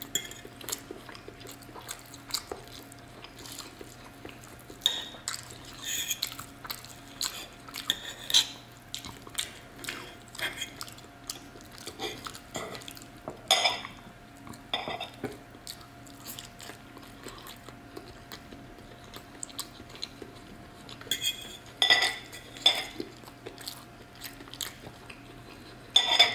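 Metal fork and knife scraping and clinking against a ceramic plate as roast chicken is cut and picked off the bone, in irregular scattered bursts.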